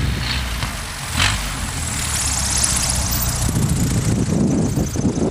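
Piper Super Cub's piston engine and propeller running steadily, with a thin high whine over the middle few seconds.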